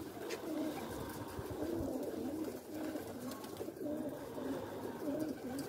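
Several feral pigeons cooing continuously, their calls overlapping.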